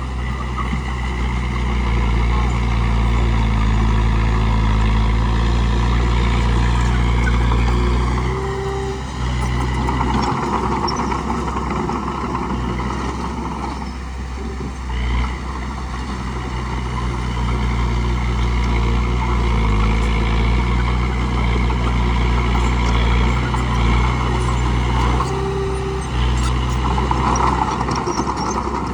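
Bulldozer's diesel engine running steadily, its loudness swelling and easing as it works. A brief squeak is heard twice, about nine seconds in and near the end.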